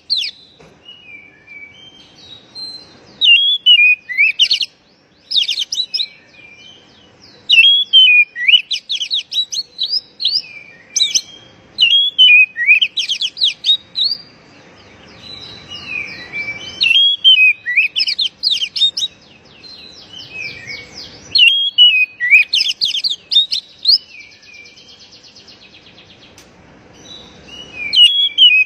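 Oriental magpie-robin singing: loud, varied whistled phrases that jump and slide in pitch, delivered in quick runs with short pauses between them.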